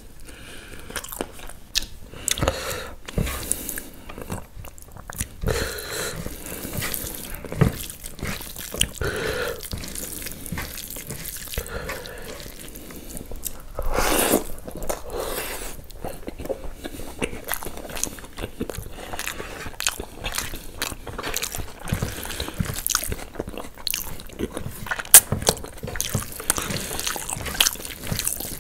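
Close-miked eating: a person chewing and biting food, with irregular mouth smacks and clicks and a longer noisy stretch about halfway through.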